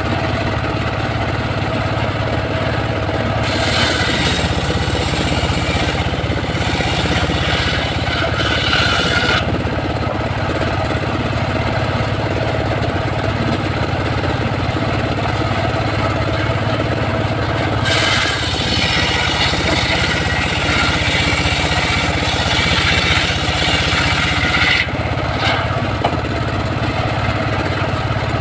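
Homemade engine-driven circular sawmill running steadily. Its blade cuts through a log twice, each cut adding a harsher, higher noise for six or seven seconds: the first starts a few seconds in, the second a little past halfway.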